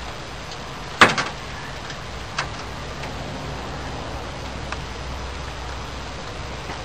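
Sharp metallic clanks from an old pickup truck's loose steel cab door as it is worked on its hinges: one loud clank about a second in, quickly followed by a second, then lighter single knocks, over a steady low hum.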